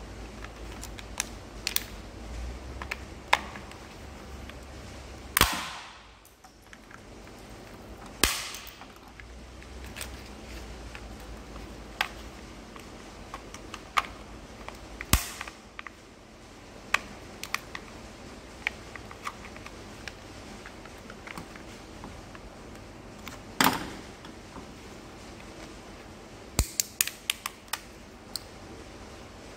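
Plastic housing of a failed Jeep TJ steering-column clock spring being pried apart with a screwdriver and pliers. Sharp plastic snaps and cracks, with louder ones about five, eight, fifteen and twenty-four seconds in, come among lighter clicks and taps of tools on a steel bench. Near the end there is a quick run of clicks.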